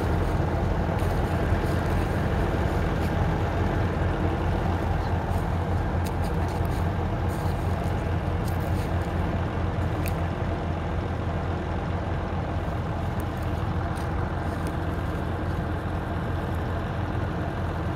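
Vehicle engine running steadily with a low hum, and a few faint clicks over it.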